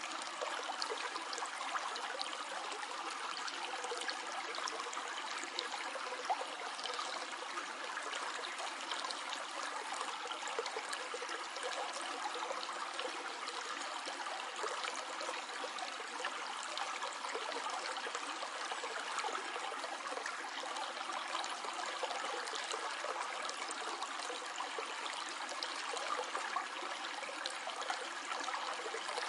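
Stream of water flowing and trickling steadily over stones, a continuous even rush with small splashes and gurgles throughout.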